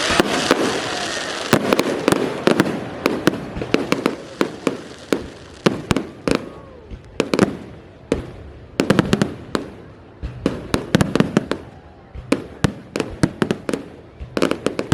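Fireworks display going off in rapid, irregular volleys of sharp bangs and crackles, with denser clusters of reports every few seconds.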